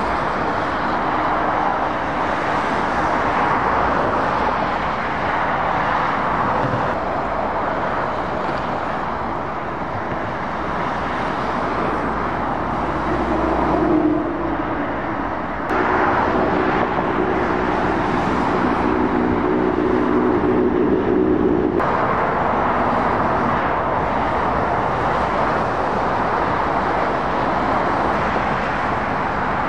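Motorway traffic: lorries and cars passing, a steady wash of tyre and engine noise, with a heavy lorry's low engine drone in the middle. The sound changes abruptly a few times.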